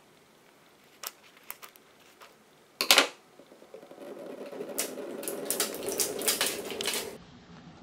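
Scissors snipping into a plastic gel-bead squishy pack, a few small snips and one louder snip about three seconds in. Then the cut pack is squeezed and water beads spill out onto the table, with a wet squishing and a quick run of small clicks that stops about seven seconds in.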